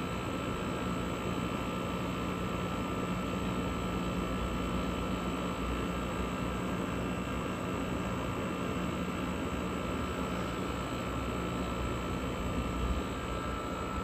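A 1960s–1970s GE Thinline air conditioner running steadily, heard from its outdoor side: the fan blowing air through the louvred grille over the hum of its GE rotary compressor, with a steady high-pitched whine. The unit is running normally.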